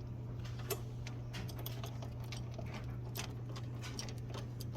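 Irregular light clicks and ticks from tightening screws into a soundbar bracket by hand, over a steady low hum.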